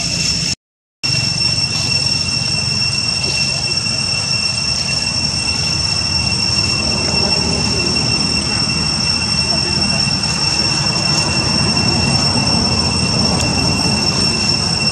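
Steady, high-pitched drone of cicadas, holding one unchanging shrill pitch, over a low rumbling noise. The sound cuts out completely for about half a second just after the start.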